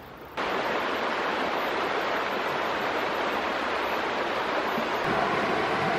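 Creek water rushing over rocks in a shallow rapid: a steady rushing noise that cuts in abruptly about a third of a second in.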